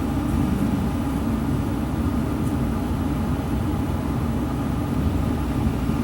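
Steady low rumbling noise at an even level throughout.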